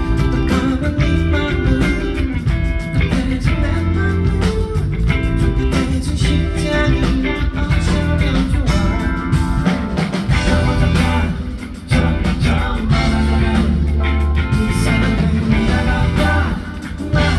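Live rock band performing: guitar, bass and drums with a male singer, amplified through a stage PA.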